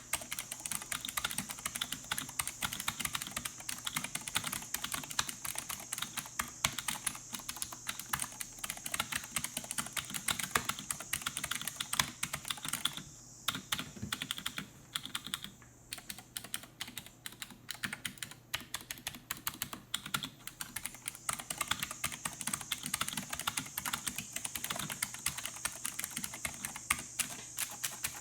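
Fast, continuous typing on a Razer Deathstalker V2 Pro with clicky purple low-profile optical switches under custom standard-size keycaps, a dense run of key clicks with two short lulls about halfway through.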